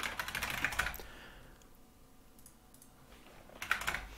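Typing on a computer keyboard: a quick run of keystrokes, a pause of a couple of seconds, then another short burst of keystrokes near the end.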